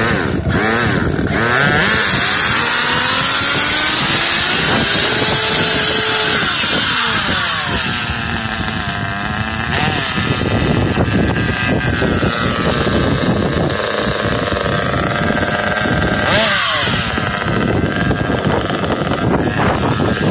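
Small nitro glow engine of a Kyosho RC buggy running just after starting, its buzzing pitch rising and falling as it is revved, with one sharp rev about three quarters of the way through.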